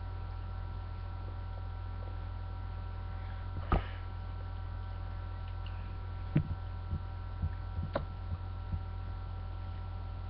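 Steady low electrical hum with a few faint higher steady tones. A handful of short soft clicks and knocks break through, one about four seconds in and a scattered group between six and nine seconds in.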